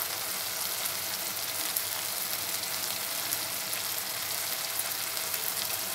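Wet tomato-onion masala frying in oil in a pan, sizzling steadily with fine crackles.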